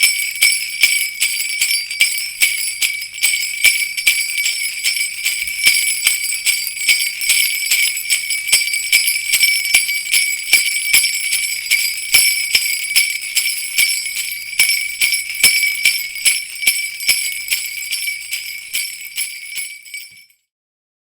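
Sleigh bells shaker jingling continuously, the small metal bells ringing bright and high with a steady run of sharp shake accents. The jingling fades slightly and cuts off near the end.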